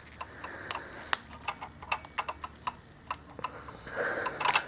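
Light, irregular clicks and taps of small screws and plastic parts being handled as the assembly screws are worked loose from their packaging, with a brief rustle near the end.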